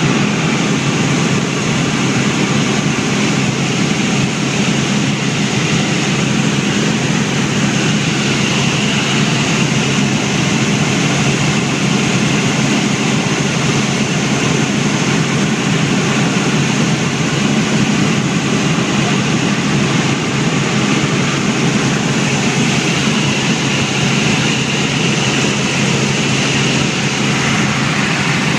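Helicopter in flight heard from inside the cabin: a loud, steady drone of engine and rotor noise that does not change.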